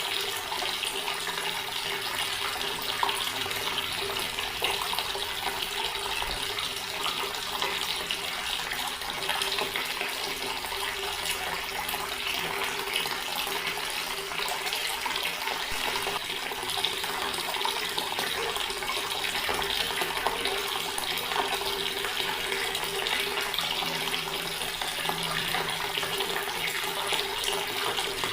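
Water from a tap pouring steadily into a stone basin, an unbroken splashing flow.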